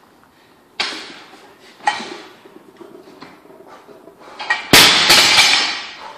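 A 135 lb barbell loaded with bumper plates clanking sharply twice as it is pulled up and caught, then dropped from overhead onto a rubber gym floor near the end with a loud crash and a rattle of the bouncing plates.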